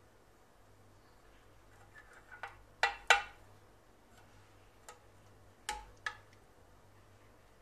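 Metal spoon scooping in a glass baking dish, clinking against the glass a few times. The loudest clinks come close together about three seconds in, and another pair comes near six seconds.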